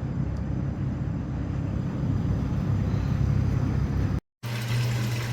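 Steady low machinery rumble and hum, broken once by a brief dropout about four seconds in, after which a steadier low hum carries on.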